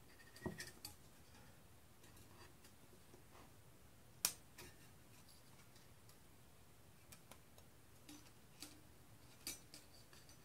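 Tiny scissors snipping parts out of a thin metal model-kit sheet: a few scattered sharp snips and clicks, the loudest about four seconds in.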